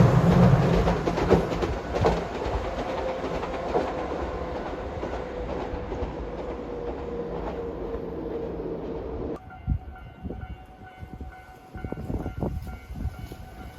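A train passing and moving away, its wheel and running noise fading steadily with a faint, slowly falling whine. About nine seconds in, the sound cuts off abruptly to quieter surroundings with a faint steady tone and a few knocks.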